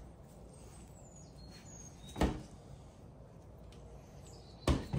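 Two short, sharp clicks of small RC truck suspension parts being handled and set on a work mat, one about two seconds in and one near the end, over faint background hiss.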